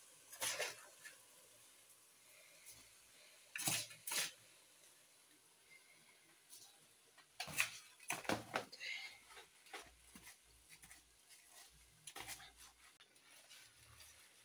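Cooking pot and utensils clattering and scraping quietly in short bursts a few seconds apart as rice is added to a pot of pilau.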